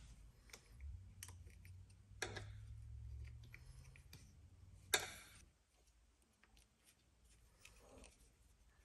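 Small metal clicks and taps of an Allen key and fingers working the ripper pin mount of an RC bulldozer, with one sharper click about five seconds in.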